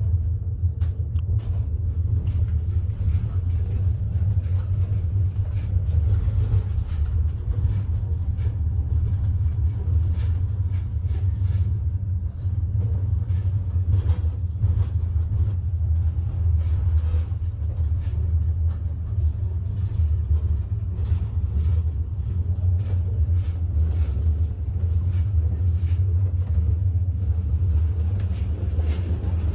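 Steady low rumble of a moving passenger train, with faint scattered rattles and clicks.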